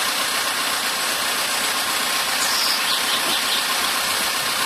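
Caterpillar 416E backhoe loader's diesel engine running steadily, with a steady high-pitched squealing hiss over it from the working machine.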